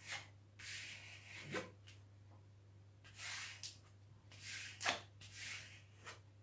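A hand sliding over the plastic film covering a diamond painting canvas: several soft swishing rubs, with a few sharp crinkles of the film, the loudest about five seconds in.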